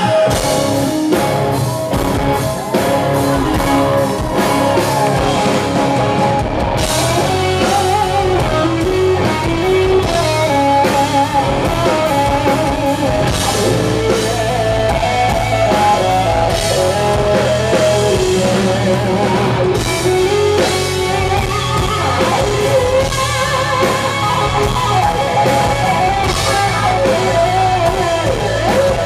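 Live hard rock band playing through a festival PA: electric guitar, drum kit and a male singer.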